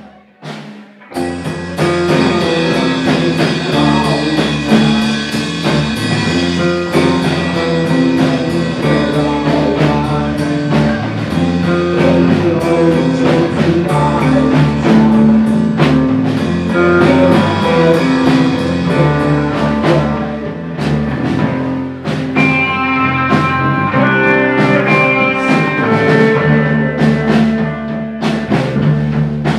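Live rock band playing loudly: electric guitars, bass guitar and a drum kit. The band comes in together about a second in after a brief quiet moment.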